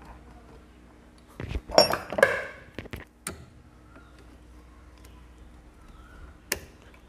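Small metal engine parts and tools clinking and knocking as they are handled: a cluster of clinks between about one and a half and three seconds in, then a single sharp click near the end.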